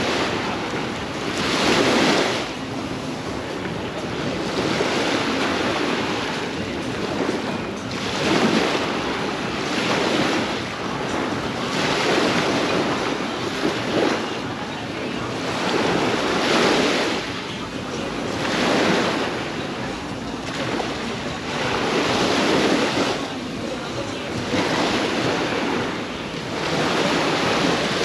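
Sea waves breaking and washing up the beach, a steady rush of surf that swells and eases every two seconds or so.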